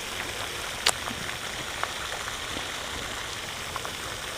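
Steady rushing noise like running water, with one sharp click about a second in and a few faint small ticks.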